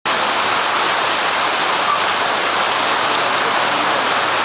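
Steady, even rushing of a river flowing beneath a bridge.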